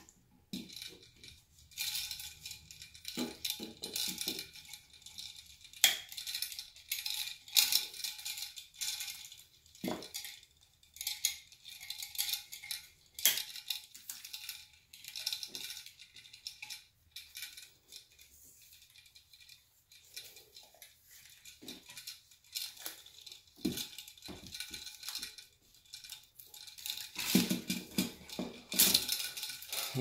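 Scattered small clicks, scrapes and rattles of a light switch's metal strap, screw terminals and wires being handled and worked with a screwdriver in an open wall box.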